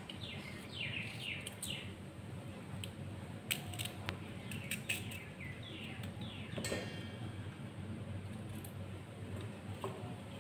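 A bird calling in runs of quick falling chirps, several a second, with a few sharp clicks from a knife slicing raw green mango.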